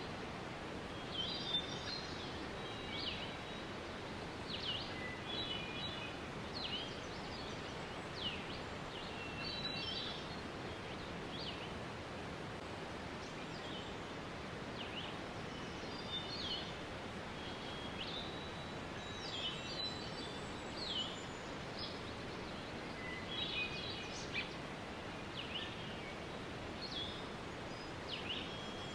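Waterfall rushing steadily, with birds chirping over it: many short calls throughout, several of them quick notes falling in pitch.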